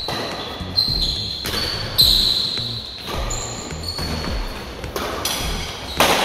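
Badminton rally: several sharp racket hits on the shuttlecock, with shoes squeaking on the court floor between them.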